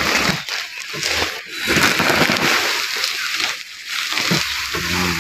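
Plastic tarp and a pile of cut grass and dry straw fodder rustling and crunching as they are handled close to the microphone, in uneven surges.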